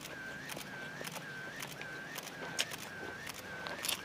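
A bird repeating a short, even whistled note about twice a second, with a few faint clicks of fingers handling food and eating.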